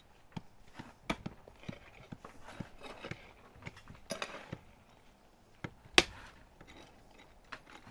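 Metal hoe blade chopping into soil: a string of irregular sharp thuds, with the loudest strike about six seconds in and some soil scraping between strokes.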